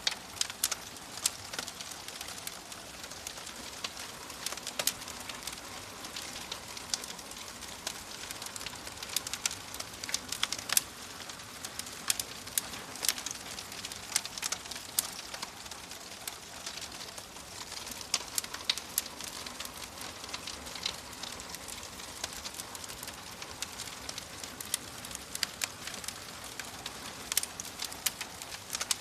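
Fireplace fire crackling: a steady soft hiss with frequent, irregular sharp pops and snaps.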